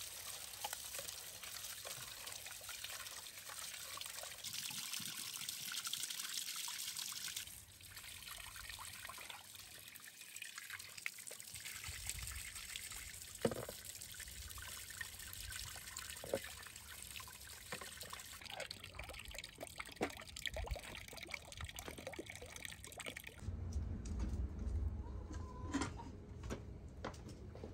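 Water trickling and pouring steadily, with a few light knocks; a low rumble comes in near the end.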